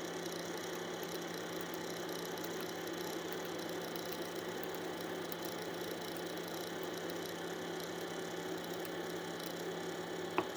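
Monoprice MP Select Mini V2 3D printer sitting powered on, its cooling fan whirring steadily with a faint constant hum, and the hotend heating. A single brief click near the end.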